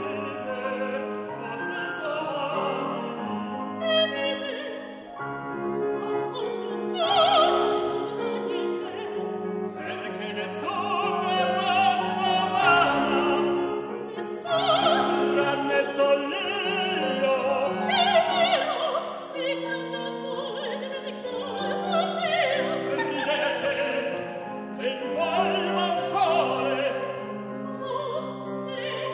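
Soprano and tenor singing an operatic duet with vibrato, accompanied by piano.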